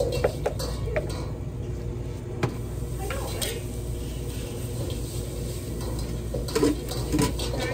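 A knife and gloved hands working a tuna loin on a plastic cutting board: scattered soft taps and clicks as the blade cuts and touches the board, and a paper towel handled against the fish, over a steady low hum.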